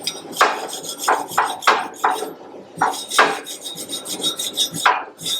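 Wire brush scrubbing a fresh flux-core weld bead on steel plate in quick back-and-forth strokes, about three a second with a short pause midway, cleaning off slag and shining the weld.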